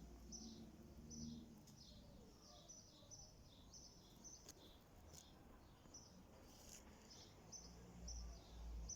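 A small bird calling over and over in faint, high, short notes, each dropping in pitch, about two a second. A low rumble comes in near the end.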